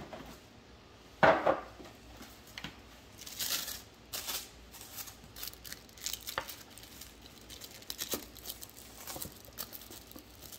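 Handling noise from a metal watch bracelet and small items being picked up and moved: a sharp knock about a second in, then scattered light clicks and rustles.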